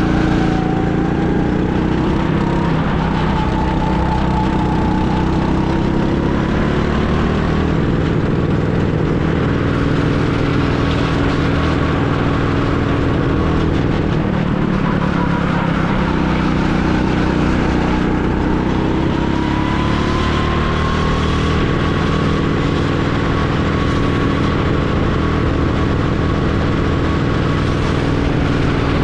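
Go-kart engine running hard without a break, its pitch sinking and climbing again as the throttle comes off and back on, with a clear climb about two-thirds of the way through.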